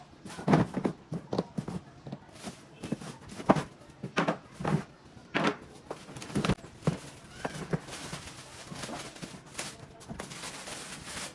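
Plastic-wrapped parts of a toy ride-on ATV being handled and lifted out of a cardboard box: irregular knocks and thumps of hard plastic against the box, with rustling of the plastic wrapping.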